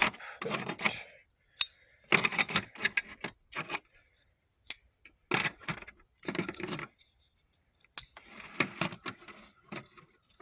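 Folding pocket knives being handled, metal clinking and clicking against each other in several short spells of rattling with brief pauses between.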